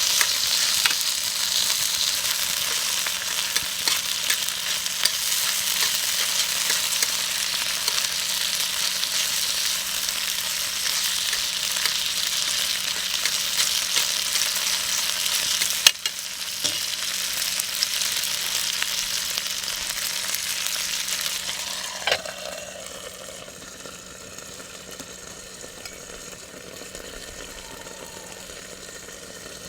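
Marinated meat and garlic scapes sizzling hard in a hot iron frying pan as they are stir-fried, with scattered sharp clicks. About two-thirds of the way through there is a knock, and the sizzle drops to a much quieter level.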